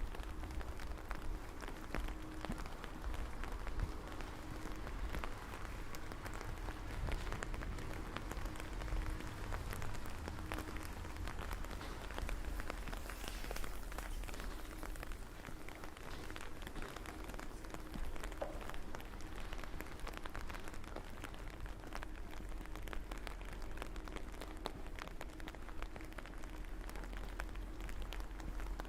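Steady rain falling, with a dense patter of drops ticking close by over an even hiss.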